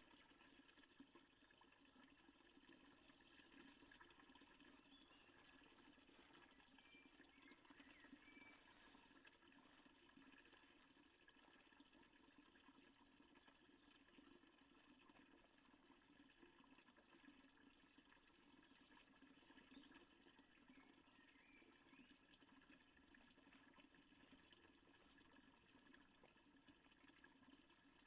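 Faint, steady splashing and trickling of water from a fountain.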